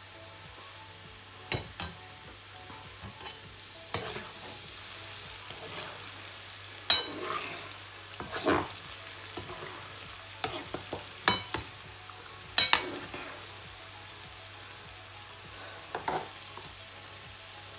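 Flour-coated peanuts deep-frying in oil with a steady sizzle. A metal slotted spoon stirs them, knocking against the pan several times.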